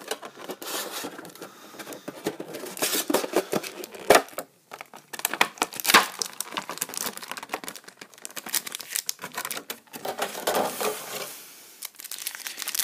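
Foil Pokémon booster packs crinkling and rustling as they are handled and pulled from a metal collector's tin, with a run of small clicks and two sharper clicks about four and six seconds in.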